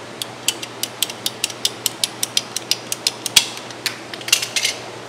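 Ratcheting PVC pipe cutter clicking as its handle is squeezed to drive the blade through a white PVC pipe, about six clicks a second. A quick cluster of louder clicks comes near the end.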